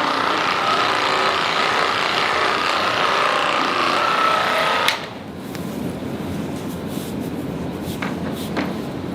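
Handheld percussive massage gun running with a steady whine, switched off with a click about five seconds in. A few faint clicks and rustles follow.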